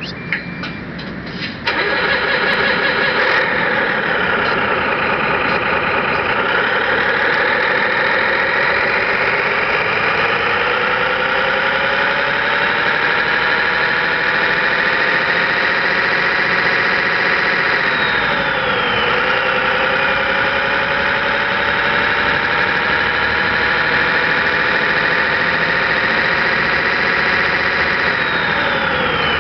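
Scale model truck's electronic engine-sound unit playing a truck diesel: a few clicks, then the engine starts about a second and a half in and runs steadily. Its pitch sinks, climbs and holds, dips and recovers about two-thirds of the way through, and dips again near the end.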